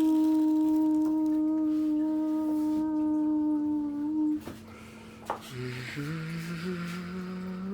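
A voice humming a long steady note in imitation of a jet airliner taking off. The note sags a little and breaks off about four seconds in; after a short pause a lower hum starts and climbs steadily in pitch.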